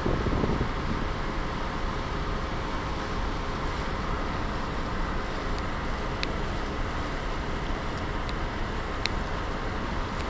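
Steady wind noise on the microphone on the open deck of a ferry under way, over the ship's constant low machinery rumble with a faint steady hum. A couple of faint ticks in the second half.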